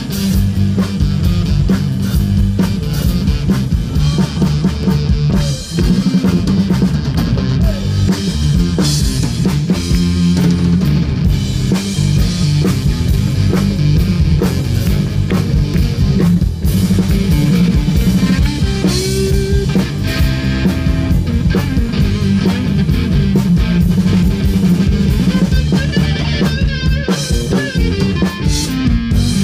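Live rock band playing a blues number, loud and steady: drum kit with snare and bass drum, electric guitar and bass guitar.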